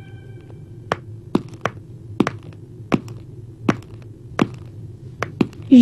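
About a dozen light taps and clicks at uneven intervals over a low steady hum. Right at the end a loud pitched sound begins, gliding up in pitch.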